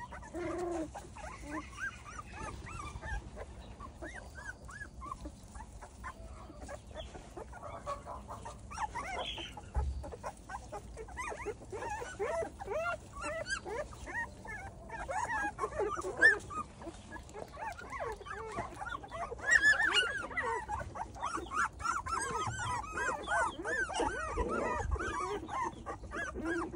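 A litter of young puppies whimpering and squeaking, many short high calls overlapping one another, growing busier and louder in the second half.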